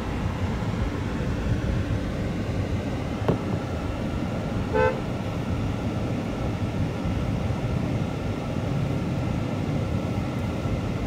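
Steady rumble of a car heard from inside the cabin, with a single sharp click about three seconds in and a short vehicle horn toot about five seconds in.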